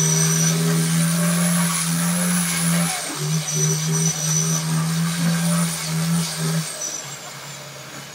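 Boat engine droning steadily on a river, with a faint high whine above it and a rushing haze of water and wind. The engine note stops about six and a half seconds in and the sound fades.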